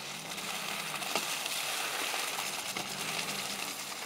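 Pickup truck driving slowly through mud and slush: a steady wet hiss of the tyres over a low engine hum, with a few light clicks.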